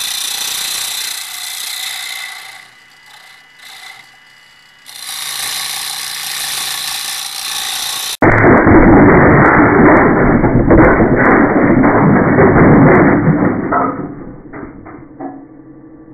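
Gouge cutting a large red oak bowl blank spinning on a wood lathe: a steady hiss of shavings that drops away for about two seconds as the tool comes off the wood. About eight seconds in, the blank bursts apart on the lathe along a hidden crack beside the natural crack at the crotch, with a sudden very loud blast of noise for about five seconds. It then fades to the lathe's hum with a few sharp knocks.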